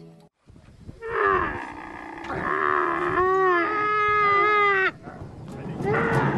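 A dromedary camel bellowing: a long call with a wavering pitch of about four seconds, then a second call starting about a second later.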